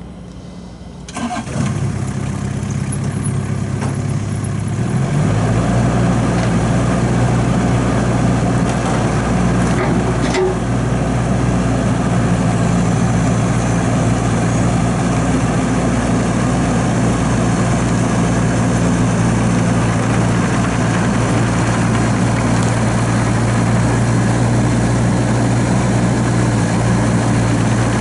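2013 Bobcat E26 mini excavator's Kubota four-cylinder diesel engine starting about a second in, rising in speed a few seconds later, then running steadily.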